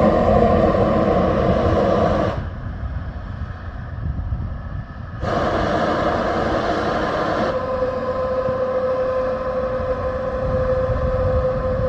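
Steady rumble and hiss of the Starship launch pad's ground systems venting, what the uploader calls the pad breathing. It cuts to a quieter stretch about two seconds in and back again about five seconds in, and from about seven and a half seconds a steady hum sits over it.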